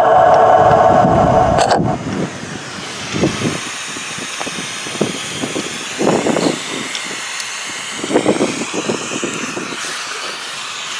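Ghost-box app playing through a phone's small speaker: a steady droning tone cuts off about two seconds in, giving way to hissing static broken by short choppy bursts of sound.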